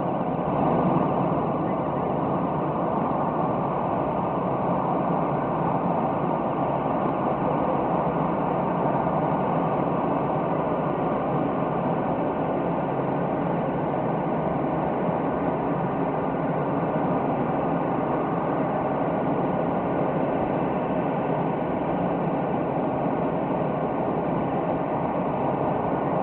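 Steady engine drone, a dense even rumble and hiss that holds unchanged throughout, with a brief swell about a second in.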